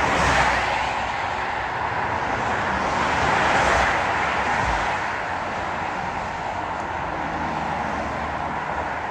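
Highway traffic passing close by: a steady rush of tyres and engines that swells as vehicles go by, about half a second in and again around three and a half seconds in.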